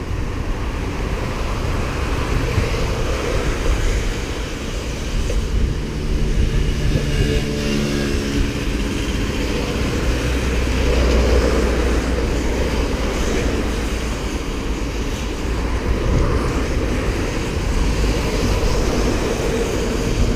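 Wind buffeting the microphone and road noise while cycling, with a motor vehicle's engine passing about seven seconds in.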